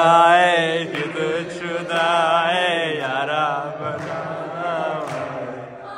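Singing: a long, wavering, ornamented melodic line over a steady low held note, with short breaks about a second in and near four seconds.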